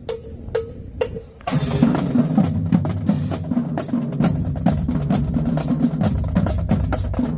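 Marching band cowbell counting off with evenly spaced taps, then about a second and a half in the full percussion section enters, with fast drum strokes over pounding bass drums.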